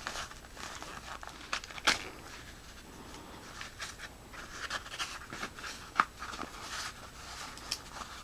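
Rustling and crinkling of packed accessories being worked out of a holster by hand, with two sharp clicks or knocks, one about two seconds in and a louder one about six seconds in.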